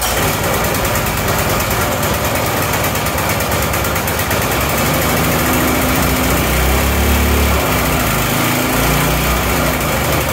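Predator 212 single-cylinder four-stroke engine on a McLane reel mower running close by, with its speed shifting up and down from about halfway through as the throttle is worked.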